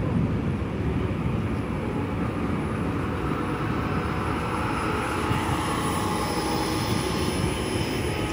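Battery-electric city bus driving slowly past close by: a steady whirring run of the electric drive over a low rumble, with a faint whine coming in about halfway through.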